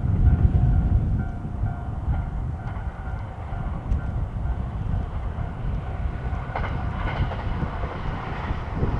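A train passing over a level crossing with a heavy low rumble, while the crossing's warning bell rings in a steady repeated ding that fades out about halfway through.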